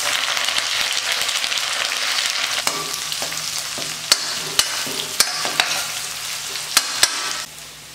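Sliced shallots and curry leaves sizzling in hot sesame oil with cumin in a stainless steel kadai. A steel spoon stirs them and clicks against the pan several times. The sizzling drops off sharply near the end.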